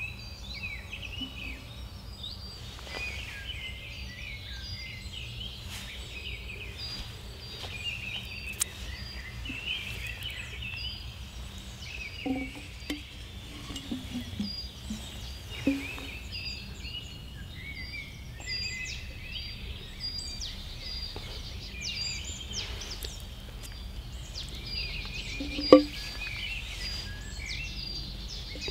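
Several songbirds chirping and trilling in woodland over a steady low background noise. A few faint knocks come in between, with one sharp knock about 26 seconds in.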